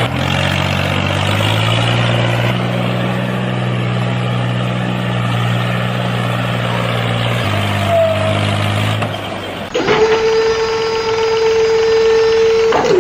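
A small engine running steadily, its note shifting up and down in steps. About ten seconds in, it gives way to a steady high tone that lasts about three seconds and drops in pitch as it stops.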